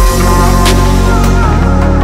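Electronic music at a beat drop: a deep bass hit that falls in pitch opens it, followed by sustained heavy bass notes and a sharp percussion hit.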